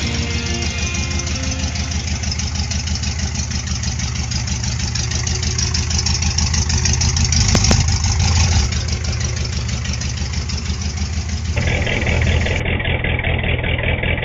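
An engine idling steadily with a low, pulsing rumble; it swells for a moment about halfway through, and its sound changes abruptly near the end.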